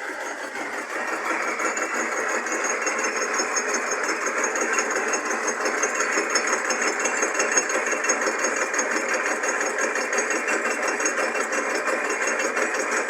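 Drill press head fitted to a lathe, spinning a milling cutter across the face of a small-block Chevy cylinder head under power feed: a steady machining whir and cutting chatter that builds over the first second or two. A thin high whine joins about a second and a half in.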